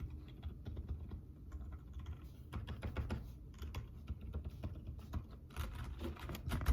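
Typing on a Redragon mechanical keyboard fitted with Outemu silent gray switches: a steady patter of keystrokes that grows into a faster, denser run near the end.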